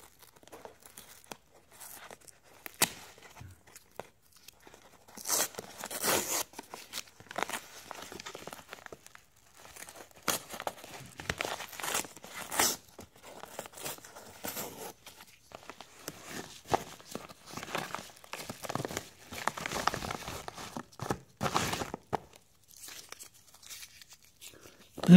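Yellow padded paper mailer being torn open by hand, in several irregular bouts of tearing and crinkling paper.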